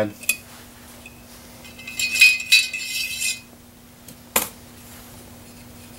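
Metal gun-cleaning tools clinking and rattling during bore cleaning of a Ruger 10/22 rifle, as patches are pushed through the barrel. There is a jingling run about two to three seconds in and one sharp click a little later, over a steady low hum.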